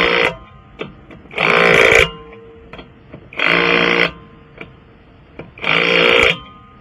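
Impact wrench spinning lug nuts onto a wheel in short buzzing bursts, four of them about two seconds apart, with small clicks of the socket going onto each nut in between.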